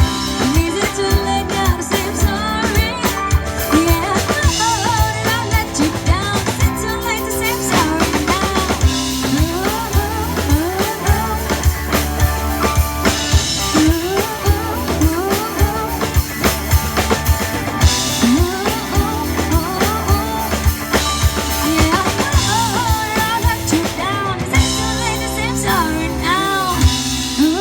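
Live band playing rock music at a sound check: drum kit with steady beats, guitar and bass, and a sung melody over it.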